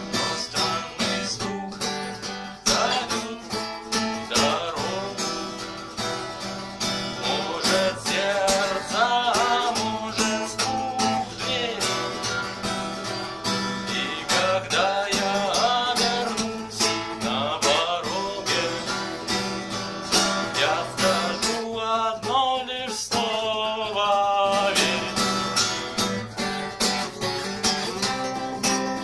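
Instrumental music led by strummed acoustic guitar. A wavering melody line comes in over the strumming several times.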